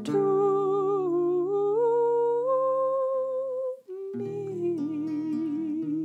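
A woman humming the melody over acoustic guitar chords, the hummed line climbing in steps and holding a high note. It breaks off briefly about four seconds in as the guitar sounds new notes, then the humming resumes on a lower note with vibrato.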